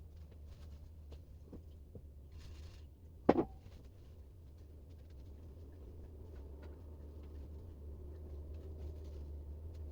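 Faint rubbing, scraping and light ticks of hand work cleaning old thermal paste off a laptop's CPU and GPU, over a steady low hum. One sharp knock comes about three seconds in.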